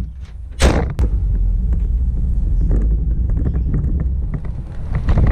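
A loud slam about half a second in, then a pickup truck driving: a steady low rumble with road and wind noise, heard from the open truck bed.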